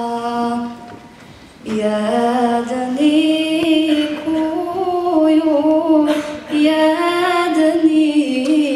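A young woman singing a Bosnian lullaby solo and unaccompanied into a microphone, in long, slowly wavering held notes, with a pause for breath about a second in.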